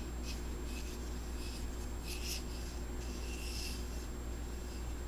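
Coarse colored sugar scraping and crunching in a bowl as a ball of cookie dough is pressed and rolled in it: faint, gritty strokes, a few in a row, over a steady low hum.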